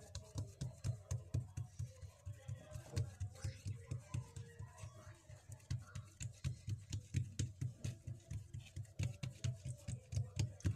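Rolling pin working a round of bread dough flat on a table, making quick, even low thumps about four or five times a second with faint clicks.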